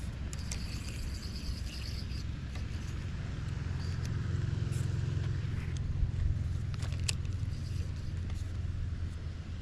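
Wind rumbling on the microphone, with a few small clicks from handling the phone and rod.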